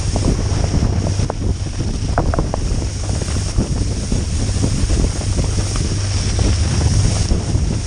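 Wind buffeting the microphone of a camera on a moving tow boat, over the boat's steady engine drone and the hiss of churning wake and spray, with occasional short ticks.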